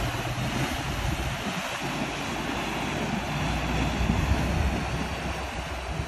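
Wind buffeting a phone's microphone with a fluctuating low rumble, over a steady rush of water churned by a pickup truck wading through a muddy creek.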